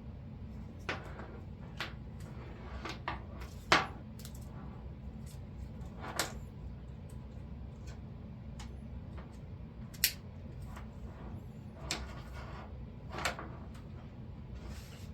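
Scattered clicks and light knocks of PCIe riser parts and their cables being handled and fitted together, the sharpest near four and ten seconds in, over a steady low hum.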